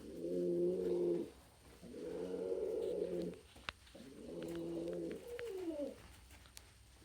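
Domestic pigeon cooing: three long, steady coos about two seconds apart, the last trailing off in a falling glide. A few short sharp clicks come in between.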